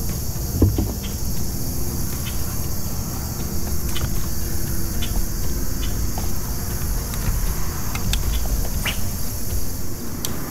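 Steady high chirring of crickets and other insects, over a low rumble, with a few light clicks scattered through it.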